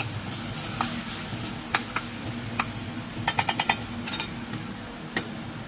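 A white plastic spoon stirring diced carrots, potato and onion in a stainless steel saucepan, knocking against the pan in scattered clicks, with a quick run of about six taps a little past three seconds in. A steady low hum runs underneath.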